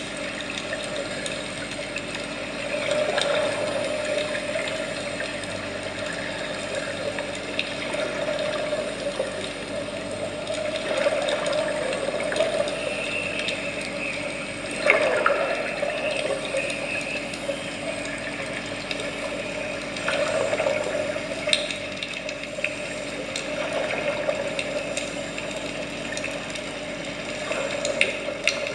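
Scuba divers breathing through regulators, heard underwater: a steady rush of water and bubbles that swells every few seconds as exhaled bubbles stream out, with one louder burst about halfway through.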